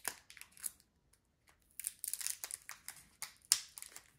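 Foil booster pack wrapper of Pokémon cards crinkling and crackling in short crisp bursts as it is handled and opened carefully. There is a brief lull about a second in, then the crinkling comes thicker.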